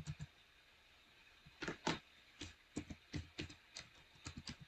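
Keystrokes on a computer keyboard, in short irregular runs of clicks that start after a pause of about a second and a half.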